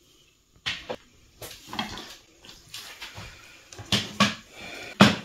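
A kitchen knife cutting raw chicken on a plastic cutting board: about six sharp knocks of the blade hitting the board, the loudest near the end, with wet handling of the meat between them.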